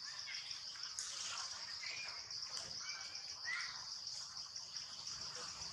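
Steady high-pitched insect chorus with a fast pulsing trill, with a few short bird chirps over it.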